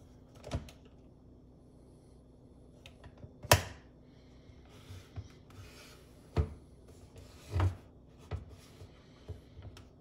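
Plastic clicks and knocks from a hand-handled single-serve coffee maker: the lid is lifted and the machine turned and set down on the counter. The knocks come as separate hits, the loudest about three and a half seconds in, with a short rubbing hiss between them.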